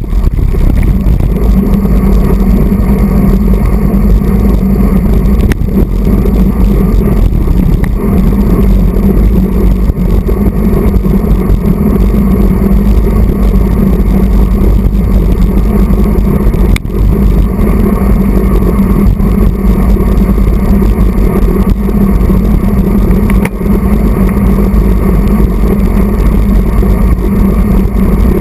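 Steady, loud wind rumble on the microphone of a handlebar-mounted action camera on a road bike at race speed, mixed with road-bike tyre noise on the asphalt.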